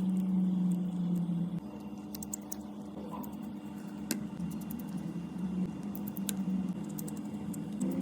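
A steady low hum, shifting slightly in pitch, with scattered small clicks and taps over it.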